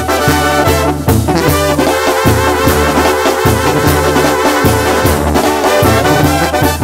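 Music with brass horns playing over a bass line.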